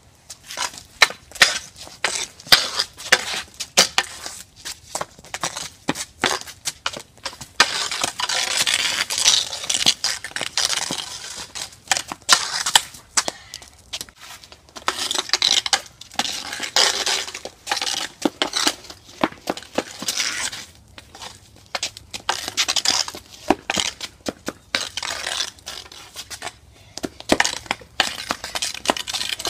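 Hockey stick blade clacking against a ball hockey ball and scraping on concrete during stickhandling: a rapid, irregular run of sharp taps broken by several longer scrapes.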